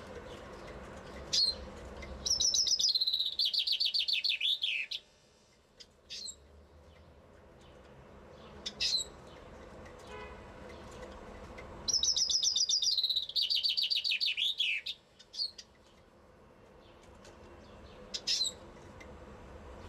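Common chaffinch (Fringilla coelebs) singing: two full song phrases about ten seconds apart, each a rapid run of notes falling in pitch to a final flourish. Short single call notes sound between the phrases.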